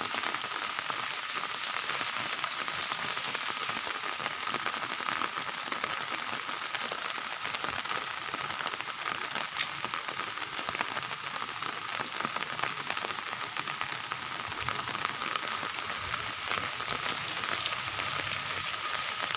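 Steady rain falling on a wet concrete rooftop and its surroundings, an even dense hiss that does not let up.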